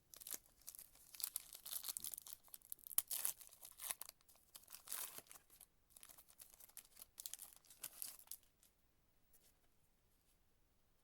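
A foil trading-card pack wrapper being torn open and crinkled, crackling on and off for about eight seconds.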